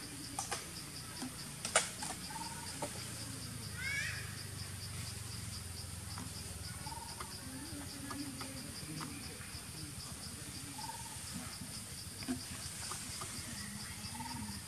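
Insects chirping in forest undergrowth: a high chirp pulsing evenly, about three times a second, over a steady high insect hiss. A few faint rustles are heard, and a brief descending chirping call comes about four seconds in.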